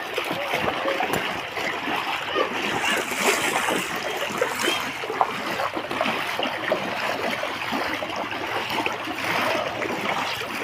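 People wading through shallow floodwater, a steady irregular splashing and sloshing of feet stepping through the water.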